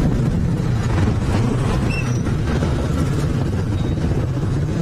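Motorcycle engine running steadily under way, with a constant rush of road and wind noise.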